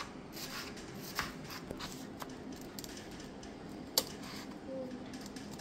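Kitchen knife slicing red onion on a wooden cutting board: irregular light cuts and taps of the blade on the board, with one sharp knock about four seconds in.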